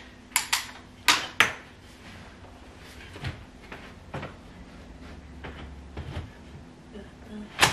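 Sharp clicks and knocks of a pushchair's seat unit and frame being handled and clipped together. Four sharp clicks come in the first second and a half, then a few softer knocks, and a loud click near the end.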